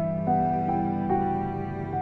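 Slow instrumental background music, held notes giving way to new ones every half second or so.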